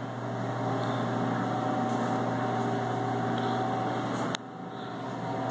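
Pepsi vending machine running with a steady hum. About four seconds in there is a single click, and the hum drops quieter for a moment.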